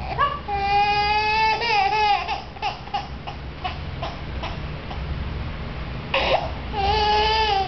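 Infant crying in frustration while trying to crawl: a long wail at the start, shorter fainter whimpers in the middle, then another long wail near the end.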